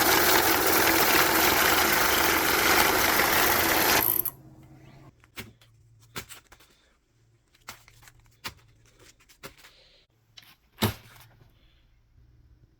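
Electric banknote counter running as a stack of dollar bills feeds through, stopping suddenly about four seconds in; a few light clicks and taps of the bills being handled follow.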